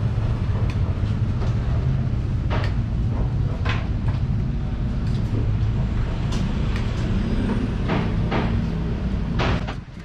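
Steady low rumble of a vehicle engine running close by, with a few sharp clinks of spoons on plates; the rumble drops away near the end.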